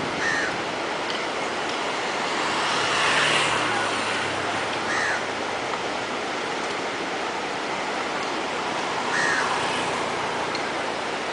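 Steady rushing of a whitewater river, with a brief swell about three seconds in and a few faint short high sounds over it.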